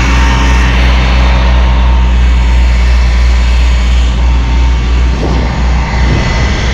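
Pumper trucks' engines and pumps running steadily with a deep, constant hum while they pump oily water out of the creek; about five seconds in, the low hum turns rough and uneven.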